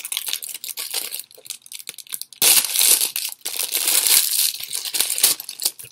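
Clear plastic packaging crinkling as it is pulled open by hand and worked off a phone case, fainter at first and much louder from about two and a half seconds in.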